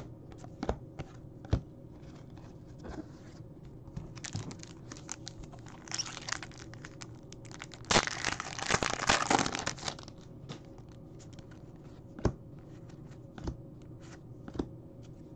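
An Upper Deck hockey card pack's wrapper being torn open and crinkled, loudest for about two seconds past the middle, after a shorter rustle. Light clicks and taps of cards being handled come before and after it.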